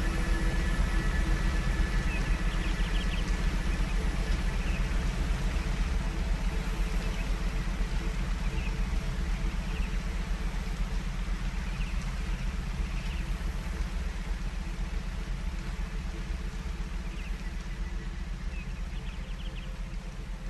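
Brainwave-entrainment (binaural-beat) track: steady low droning tones with a fast pulsing beat, under a hiss-like wash of noise, slowly fading out.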